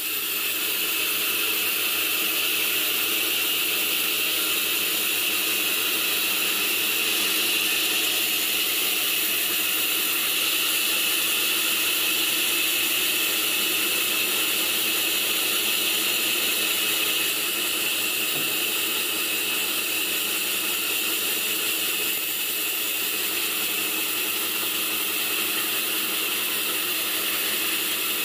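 Sawmill band saw ripping a log lengthwise: a loud, steady, high-pitched hiss of the blade cutting through the wood over the running machine.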